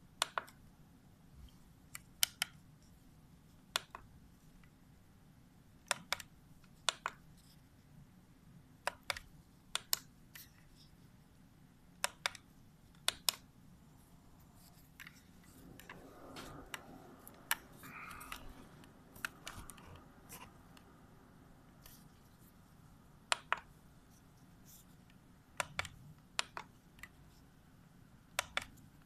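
Metal dissecting instruments clicking sharply, mostly in close pairs, every second or two, with a soft rubbing, rustling sound about halfway through.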